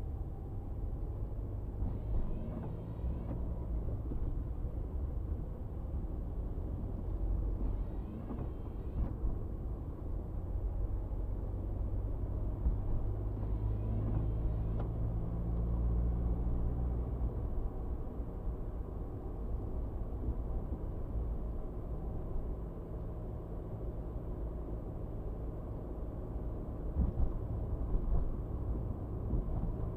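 Steady low road and engine noise inside a moving car. A windshield wiper sweeps across the glass three times, about six seconds apart.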